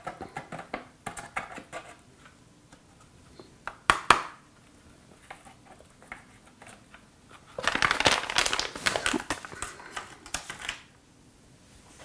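A dry-sauce packet crinkling as sauce powder is shaken out of it into a food thermos. Two sharp clicks come about four seconds in, and a longer stretch of dense rustling and crumpling runs from about eight to eleven seconds in.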